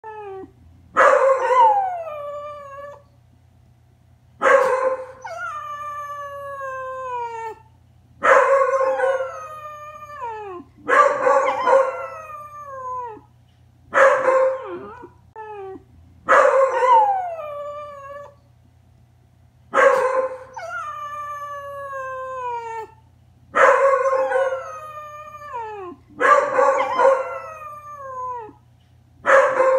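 Dogs howling, a beagle and a Boston Terrier trying to copy it: about ten long howls a few seconds apart, each starting loud and sliding down in pitch.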